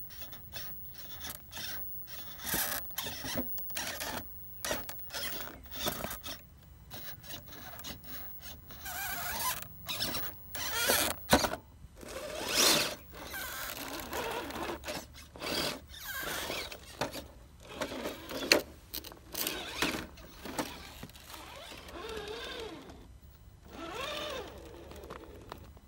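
RC rock crawler's 12-turn brushed 550 motor and geared drivetrain whirring in short, irregular bursts of throttle as the truck crawls over rocks.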